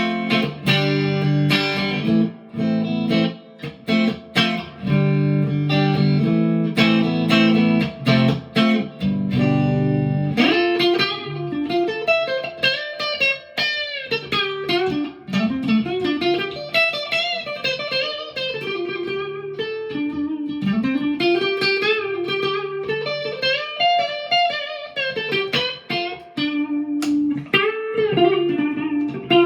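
PRS McCarty 594 Hollowbody II electric guitar played through a Marshall DSL40C amp. It plays chords and riffs for about the first ten seconds, then a single-note lead line with string bends and vibrato.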